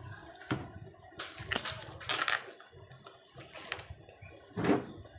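Product packaging being handled and worked open: a string of short rustles and crackles with a few knocks, the box proving hard to open.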